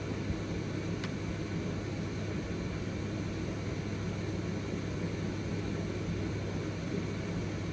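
Steady room tone: a low electrical-sounding hum with even hiss, and a faint click about a second in.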